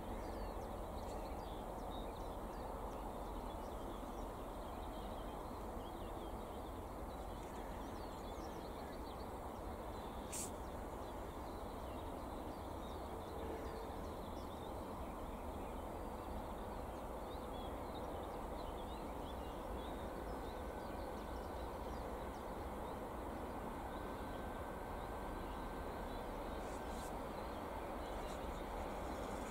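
Quiet outdoor ambience: a steady low rumble with scattered bird chirps, and a single faint click about ten seconds in.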